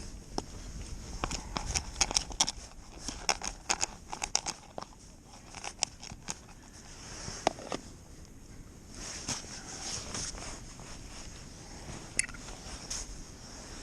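A rapid, irregular run of small clicks and crunches, as of tackle or bait being handled, thinning out after about five seconds into a few scattered clicks.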